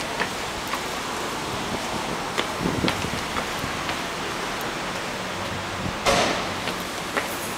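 Footsteps walking down concrete stairs, soft irregular taps about every half second over a steady hiss, with one louder scuffing step about six seconds in.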